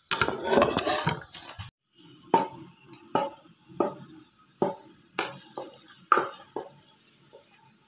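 Sliced onions sizzling in hot oil in a pot as a wooden spoon scrapes and stirs them for the first couple of seconds. After a brief break comes a string of separate light knocks and clinks, about one or two a second.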